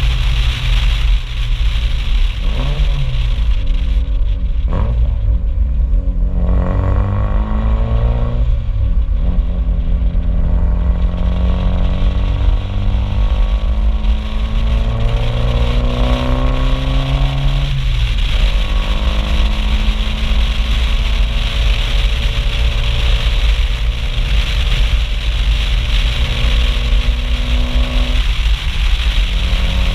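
Mitsubishi Lancer Evolution IV's turbocharged four-cylinder exhaust, loud as the car accelerates. The revs rise and fall through gear changes, with two long climbs that each break off at a shift. Steady wind rumble comes from the microphone mounted on the outside of the car.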